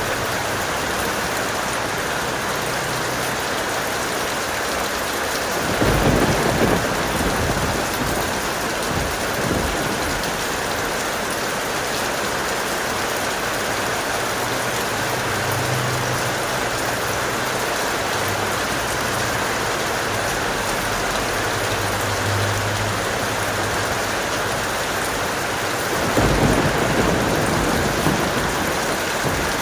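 Steady heavy rain, with a low rumble of thunder about six seconds in and another near the end.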